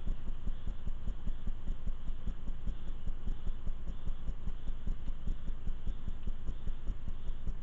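Storm rain and wind heard from indoors behind a window: a steady low rumble made of a dense, fast flutter of soft thumps.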